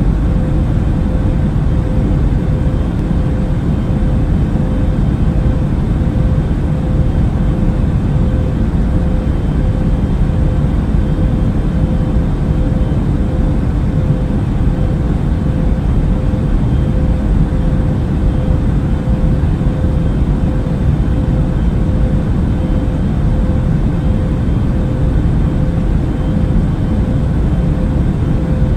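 Steady jet airliner cabin noise: a constant low rush of engines and airflow with a faint steady hum above it.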